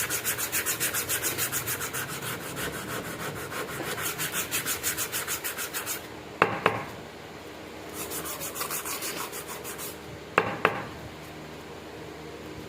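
A knife blade rubbed back and forth against an abrasive in quick, even strokes, during hand sharpening and finishing. The strokes stop twice, each time with a pair of sharp clicks, and are quieter near the end.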